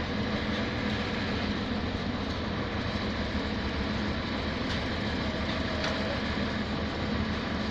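Steady running of a heavy engine, likely the drop-hammer pile rig's engine, with a few faint clicks and no hammer blows.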